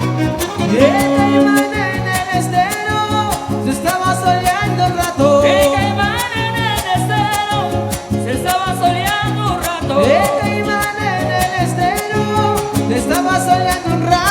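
Huapango (son huasteco) played by a huasteco string trio: a violin melody with sliding notes over the quick, steady strumming of jarana and huapanguera.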